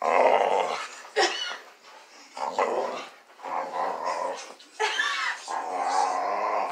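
Dog growling and grumbling in a string of wavering, drawn-out vocal bursts with short pauses between them, the longest near the end. The growls are excited play, not aggression.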